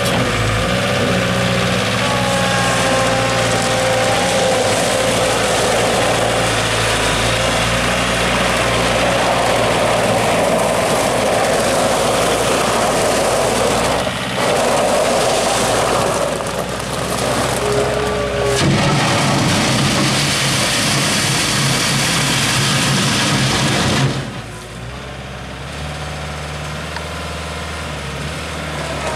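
New Holland LX665 Turbo skid-steer loader's turbo diesel engine running steadily as the machine drives about on gravel. The engine note shifts about two-thirds of the way through, and the sound drops noticeably quieter a little after that.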